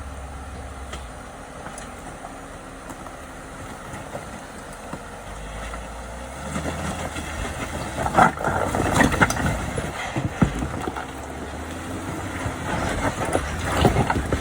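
Off-road vehicle engine running low and steady, then working harder from about halfway, with a cluster of sharp knocks and clatter as it crawls the trail.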